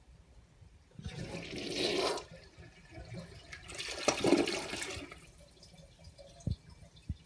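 Toilet flushing a pair of boxer briefs down: water rushes through the bowl in two surges, about a second in and again from about three and a half seconds in, then dies down.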